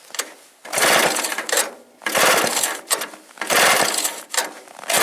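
Two-stroke Druzhba chainsaw engine on a homemade snowblower being pull-started: repeated pulls of the starter cord, about one every second and a half, each giving a short burst of cranking without the engine catching.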